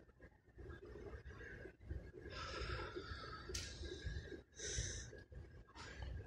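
Several short breaths close to the microphone, starting about two seconds in, the loudest near the end, over a steady low hum and a faint steady tone.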